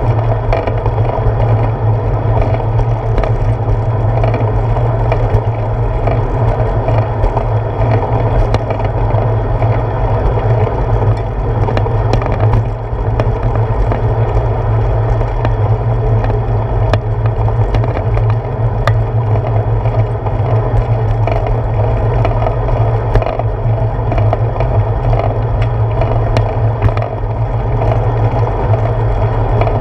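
Bicycle rolling along a paved path, heard through a handlebar-mounted GoPro Hero 4 as a steady low rumble with scattered small clicks and rattles.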